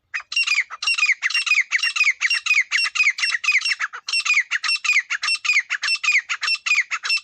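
Teetar (francolin) calling: a rapid run of sharp, falling notes, about five a second, with a short break about four seconds in.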